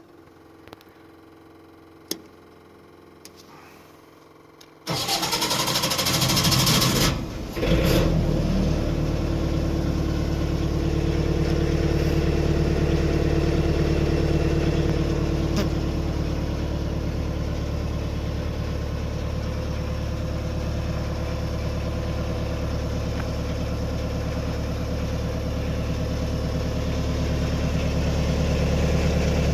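Cummins AMMPS MEP-1050 15 kW military diesel generator being started: after a few seconds of faint hum and clicks, the starter cranks for about two seconds. The diesel catches and settles into steady running.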